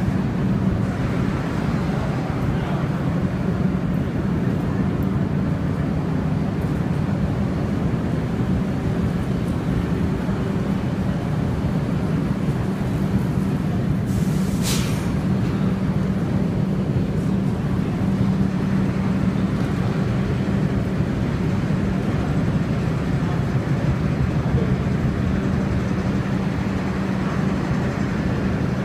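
R62A subway car running, a steady rumble with a low motor hum. A short sharp hiss comes about halfway through.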